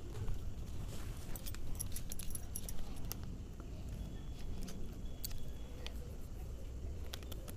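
Light clicking and crinkling as thin plastic ice-pop tubes are handled and folded, with bangles on the wrists clinking as the hands work.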